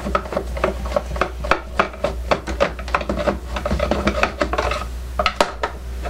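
A screwdriver backing screws out of a plastic boombox case, with irregular clicks, scraping and rubbing of metal on plastic as the case is handled.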